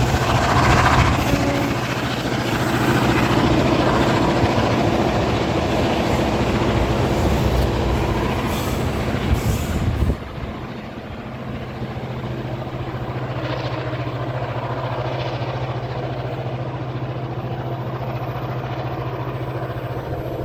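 Diesel locomotive engine running with a steady low hum over rolling train noise. About ten seconds in the sound cuts abruptly to a quieter, similar steady engine hum.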